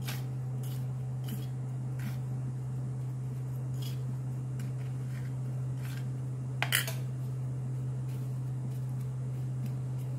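Steel spoon scraping and clinking against a steel plate while coating prawns in dry semolina, with scattered light clinks and one louder double clink about two-thirds of the way through. A steady low hum runs underneath.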